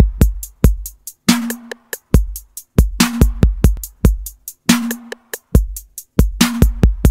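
Instrumental opening of an electronic track: a sparse drum-machine beat of deep kick drums, quick ticking hi-hats and a snare-like hit with a short low ring about every one and a half seconds.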